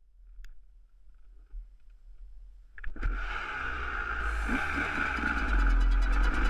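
Dirt bike engine starting to be heard suddenly about three seconds in, then running and revving as the bike rides across the grass.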